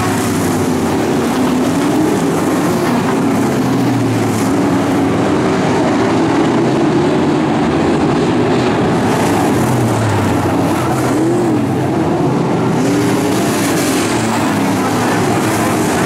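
A pack of pro stock dirt-track race cars running at racing speed, a steady engine sound with the pitch rising and falling as the cars accelerate and go past.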